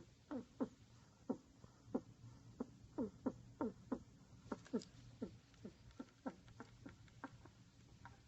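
Pet rat snoring in its sleep: a string of short, squeaky snores, each a quick downward-sliding chirp, coming irregularly about two or three times a second.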